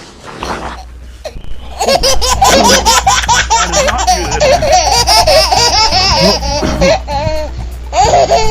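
Hearty, high-pitched laughter in rapid, continuous bursts, breaking out about two seconds in after a quieter start.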